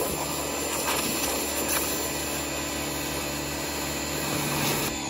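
Pressure washer running steadily, its water jet spraying into a bucket of car-wash soap to foam it up. The pump's whine begins to fall away right at the end.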